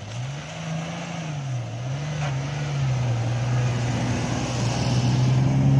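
Toyota FJ Cruiser's 4.0-litre V6 revving up and down twice as it works through deep snow, then holding a steady, growing pull as the wheels churn and throw up snow.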